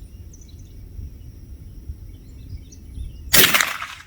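A single shot from a Stevens 56C Buckhorn .22 rifle: one sharp crack a little over three seconds in, ringing on for about half a second. Birds chirp faintly in the background.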